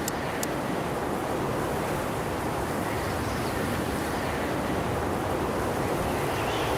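Strong wind blowing steadily, a continuous rushing noise with no lull.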